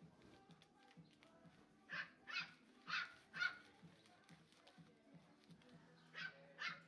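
Puppy yapping in short, sharp barks: four in quick succession about two seconds in, then two more near the end.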